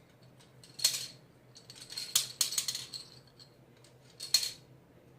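Small hard objects clicking and clattering: a single click, then a quick run of clicks, then one more, each with a light ringing.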